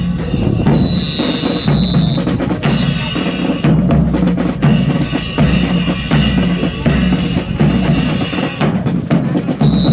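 Marching drum cadence, bass drum and snare keeping a steady beat for a rifle drill. A long, high, steady whistle blast sounds about a second in, and another at the very end.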